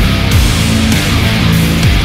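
Loud heavy metal music with a steady driving beat and sliding bass notes.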